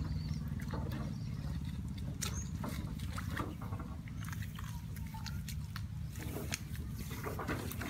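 Wet squelching and splashing as hands and bare feet work through thick mud and muddy water, in short irregular sloshes and sucking clicks over a steady low rumble.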